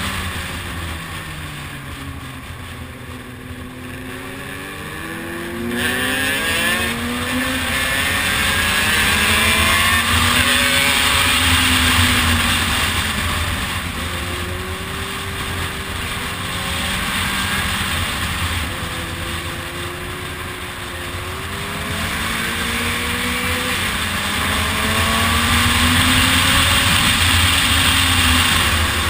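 Motorcycle engine running under way, its pitch rising and falling again and again as the rider speeds up and slows through a series of bends, with a rush of wind that grows louder at speed.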